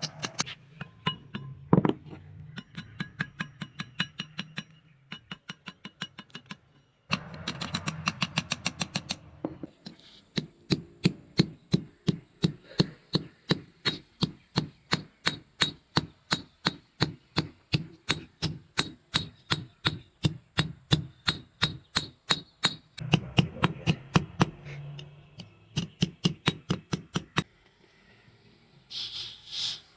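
Hammer blows on metal at a forge, about three to four evenly paced strikes a second, in several runs broken by short pauses, each strike with a brief metallic ring.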